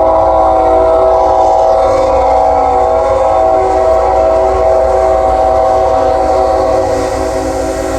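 Locomotive's Nathan K5HL air horn stuck on, sounding one unbroken, loud chord over the low rumble of the passing train. The horn eases down a little about seven seconds in.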